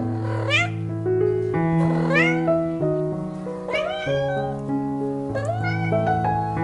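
A cat meowing about four times, each call rising in pitch, over background music with held piano-like notes.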